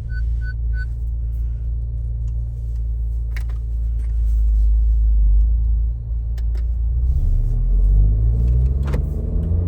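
Turbocharged four-cylinder engine of an Acura Integra heard from inside the cabin while driving: a steady low drone with road rumble, pulling harder near the end. A turn signal ticks during the first second. With a new stiff PRL rear motor mount fitted, more engine noise and vibration comes through into the cabin.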